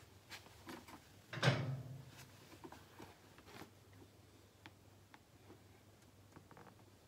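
Hand-tool handling noise: light scattered clicks and one louder clunk about a second and a half in, from tools and the borescope probe being worked in the engine bay.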